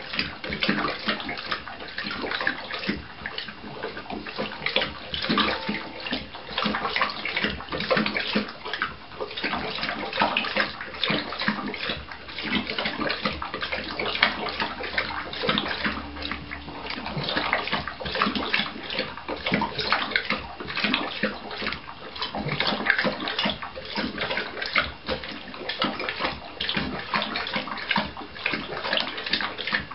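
Seven-month-old Neapolitan mastiff lapping water from a stainless-steel bowl, with continuous, irregular splashing and slurping in the metal bowl.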